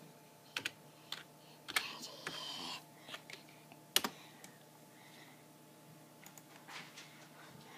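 Computer keyboard being typed on: light, irregular key clicks, with one sharper click about four seconds in.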